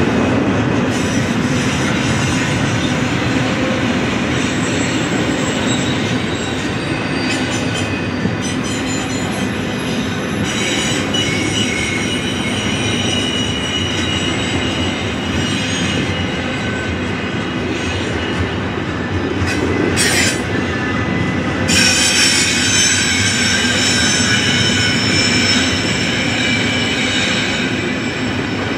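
Double-stack intermodal freight train rolling past close by: a steady rumble of well cars with high-pitched wheel squeal that comes and goes, strongest over the last several seconds.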